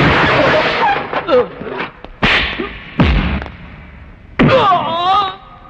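Film fight sound effects: a quick run of sharp punch and kick hits with whooshes, then a loud, drawn-out pitched cry about four and a half seconds in.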